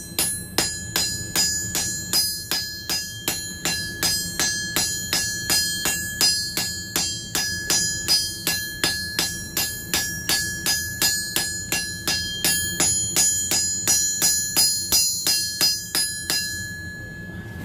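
Hand hammer striking hot steel on an anvil in a steady rhythm of about three blows a second, each blow ringing. The smith is smoothing scale marks and scabs out of a forged hammer head. The blows stop shortly before the end, over a steady low rumble.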